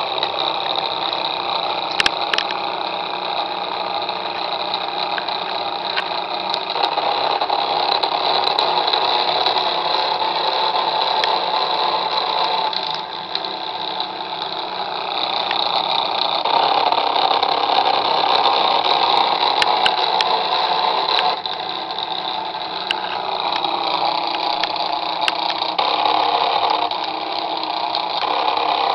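Remote-control boat's motor running steadily, its level dropping and rising again twice as the throttle is changed.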